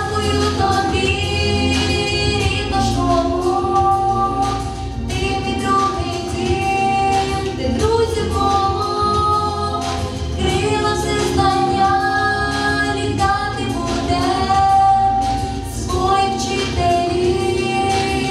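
A girl singing a song into a handheld microphone over instrumental accompaniment, with long held notes.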